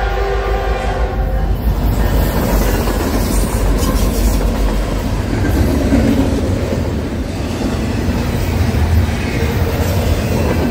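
The last of a freight locomotive's multi-note air horn, cutting off about a second and a half in. Then a double-stack intermodal freight train passes close by, its wheels clattering and rumbling over the rails.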